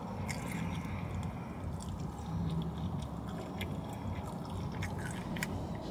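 Close-up chewing and biting of a forkful of a Chipotle rice-and-lettuce bowl, with scattered small mouth clicks and smacks over a steady low hum.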